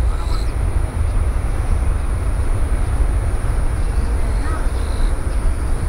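Low, steady rumble of a twin-engine jet airliner's engines as it rolls away down the runway.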